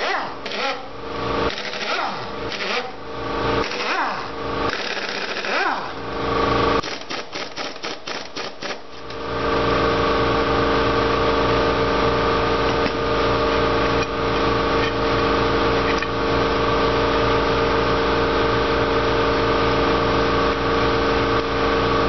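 Hand ratchet clicking in short runs and tools knocking on a tractor's planetary hub cover bolts, ending in a fast run of clicks. About nine seconds in, a steady machine hum comes in and holds level.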